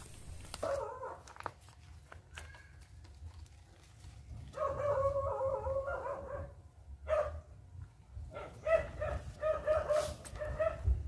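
A dog whining and yelping: a short whine about a second in, a long wavering whine around the middle, then a run of about five short yelps near the end.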